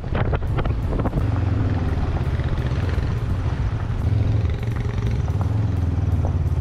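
Motorcycle engine running steadily, a low even hum, with a few brief clicks in the first second.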